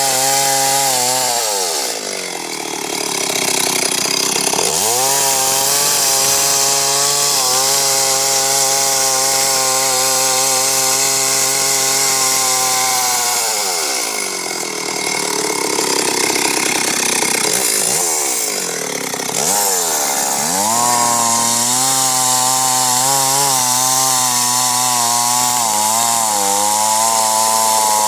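Two-stroke chainsaw running at high revs while cutting wood. Its engine note twice falls away for several seconds and climbs back up, then wavers up and down near the end.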